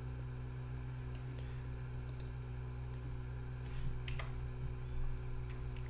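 A few scattered computer keyboard and mouse clicks over a steady low electrical hum.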